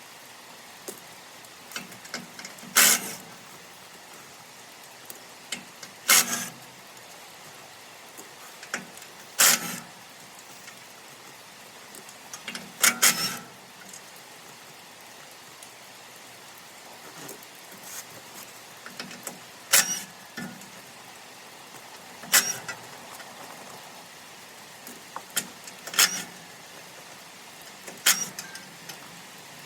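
Sharp metal clanks and clicks of tools and hardware on a round baler's pickup head as its bolts and guards are taken off, one loud clank about every three seconds, over a steady hiss.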